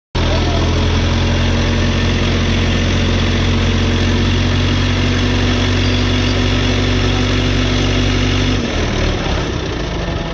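Diesel engine of a mobile crane running steadily at close range, with a deep, even note. About eight and a half seconds in, the even note breaks up into a rougher, irregular sound.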